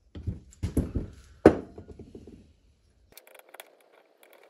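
Knocks and clatter from a metal carburetor body and tools being handled on a wooden workbench, with one sharp knock about a second and a half in. After that come faint scraping ticks of a screwdriver working inside the carburetor.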